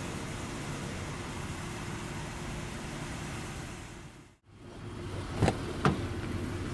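Steady outdoor background noise with a low hum, like passing traffic. After an abrupt cut, two sharp clicks about half a second apart as the Lexus GS350's driver door handle and latch are worked to open the door.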